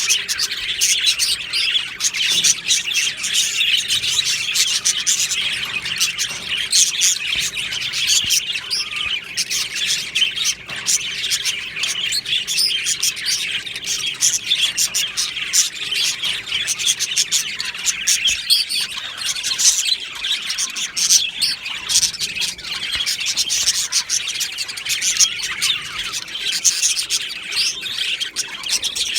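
A flock of budgerigars chirping and warbling together in an aviary, a dense, unbroken chatter of many overlapping short calls.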